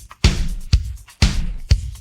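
Isolated drum kit track playing a steady rock beat: a hit about every half second, deep bass-drum thuds alternating with sharper snare hits.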